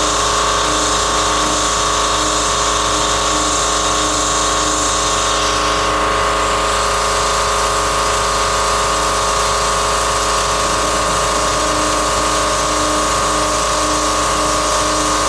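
DIY CNC router's spindle running with a steady high whine while its cutter mills aluminum, with a cutting hiss that eases about six seconds in.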